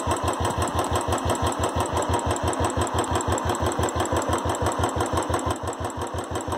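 Royal Enfield Classic 350 UCE single-cylinder engine idling with its even thump, about seven beats a second, under a metallic rattle from the top end: tappet noise, which the mechanic traces to low oil flow at the pushrods.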